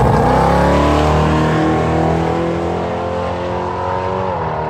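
Drag car with an electric supercharger accelerating down a drag strip, its engine note growing fainter as it pulls away. The pitch drops near the end, where a glitch in the control circuitry cut the supercharger and the pass laid over.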